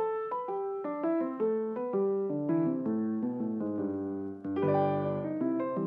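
Background piano music: a melody of short, quickly fading notes over lower chords, with a fuller chord about four and a half seconds in.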